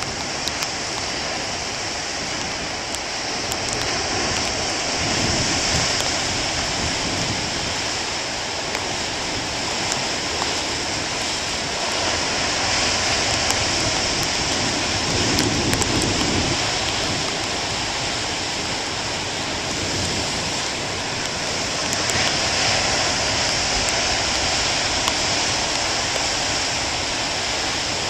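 Heavy surf of large storm waves breaking and washing over a rocky shore: a continuous rushing noise that swells and eases every several seconds.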